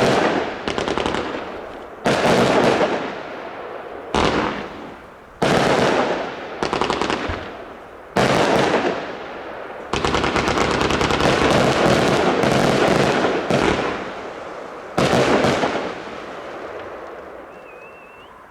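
Fireworks cake firing volleys of small bouquet shots in rapid bursts, with a long unbroken run of shots about two-thirds of the way through, then one last burst whose crackle dies away.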